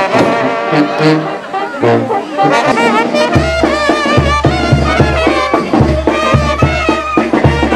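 Brass band music with trumpets and trombones playing a melody; a deep, steady bass line comes in about three seconds in.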